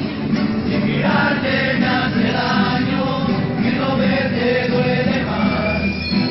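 A rondalla performing: several voices singing together over its musical accompaniment.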